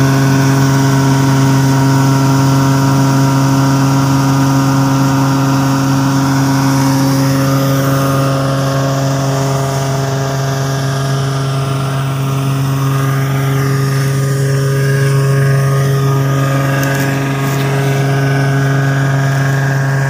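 New Holland combine harvester with a straw-making (tudi) attachment running steadily under load while harvesting wheat: a constant engine and threshing-machinery hum with a strong low tone.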